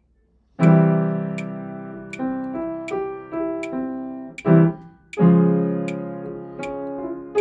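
Upright piano playing a triad warm-up, with held chords and broken triads moving step by step. Under it a metronome clicks steadily, about 80 beats a minute. The piano comes in about half a second in, and there is a short detached chord about four and a half seconds in.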